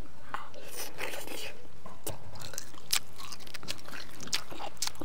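A person chewing and biting into stir-fried chicken pieces on the bone, with a string of short, irregular crunches and clicks.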